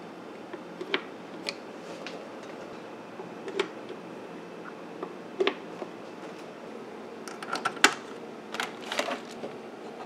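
Scattered light clicks and knocks from hands handling equipment, over a steady faint hiss. The clicks come in a cluster near the end.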